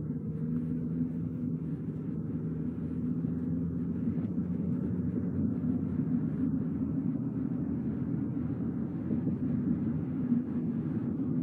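A car driving along the road: a steady low rumble of tyres and engine, with a faint steady hum in it.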